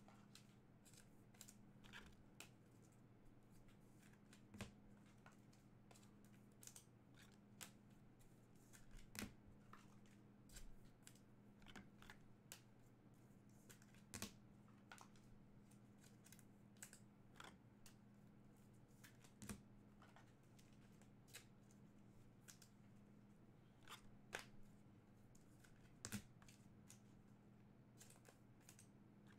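Faint, irregular clicks and slides of chrome trading cards being handled and flipped through, over a steady low hum.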